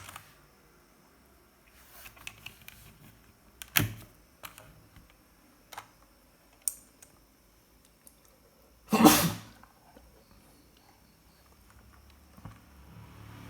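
Keys of a Gamen Titan Elite mechanical keyboard pressed one at a time: scattered single clicks with pauses between them, and one longer, louder clatter about nine seconds in.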